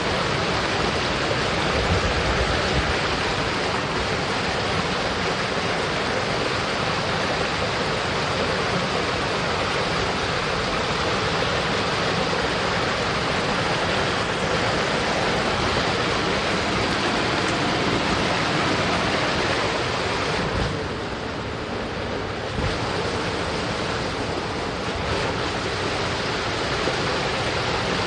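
Steady rush of a mountain stream's flowing water, briefly a little quieter about three-quarters of the way through.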